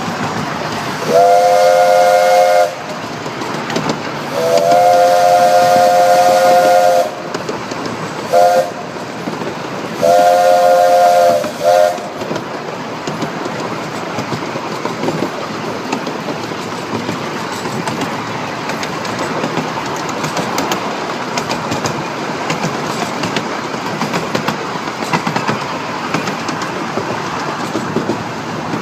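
Small-gauge steam locomotive's whistle blowing a chord of several notes in four blasts, long, long, short, long, the pattern of the standard road-crossing signal. After about twelve seconds the whistle stops, and the train runs on with steady rail clatter.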